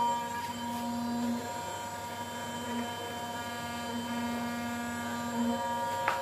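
CNC router running: a steady whine of several held tones, with a lower hum that switches on and off every second or so. A sharp click near the end.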